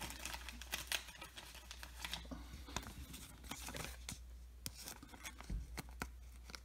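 Soft clear plastic card sleeve rustling and crinkling, with scattered light ticks, as a baseball card is handled and slid into it.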